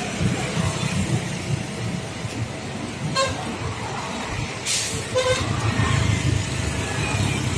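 Road traffic passing close: motor vehicles, a minibus and a truck among them, running by with a steady engine rumble. There are short horn toots about three seconds in and again about five seconds in, and a brief hiss just before the second toot.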